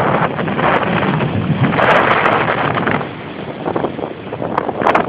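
Wind buffeting the microphone in a loud, gusty rush that eases a little about three seconds in.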